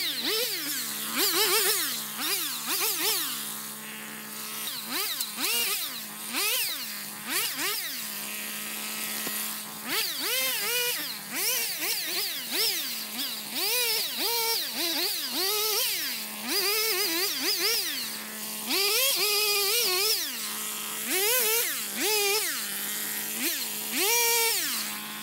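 Stihl MS 170 two-stroke chainsaw revved up and down again and again while cutting brush, each rev rising in pitch and falling back to a steady idle between cuts, roughly once a second.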